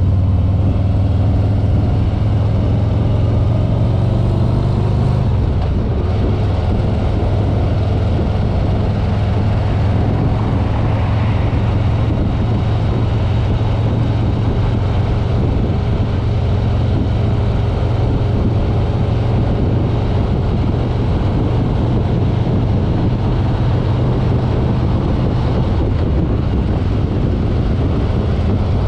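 2021 Harley-Davidson Road King's Milwaukee-Eight V-twin running steadily at road speed, a low rumble under a steady rush of wind and road noise.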